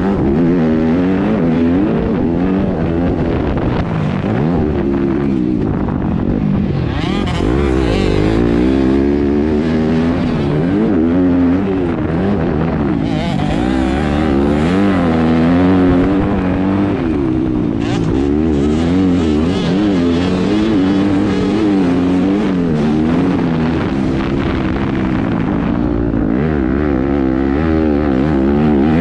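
2019 Yamaha YZ250F four-stroke single-cylinder motocross bike engine, revving up and down continually as the throttle is worked through corners and gear changes, pulling hardest about a quarter and about half way through.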